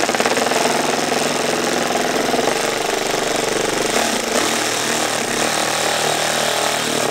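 Reciprocating saw running steadily at speed, its blade cutting through a car's plastic front bumper around a vent insert; it stops abruptly at the end.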